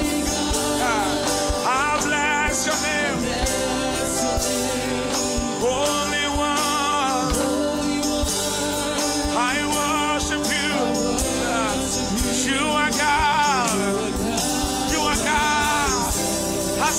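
Live gospel music: a male lead voice sings long, wavering runs over a band playing sustained chords with a steady beat, with backing singers joining in.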